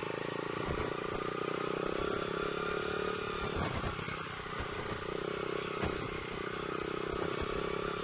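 Motorcycle engine running at a low, steady pace, its pitch easing off briefly about three and a half seconds in and picking up again, with a few light knocks.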